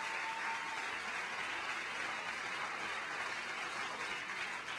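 Steady background hiss of room noise with no speech, and a faint thin tone that stops about a second in.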